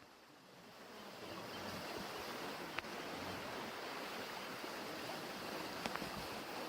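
Steady rush of flowing stream water, fading in over the first second or so, with a couple of faint clicks.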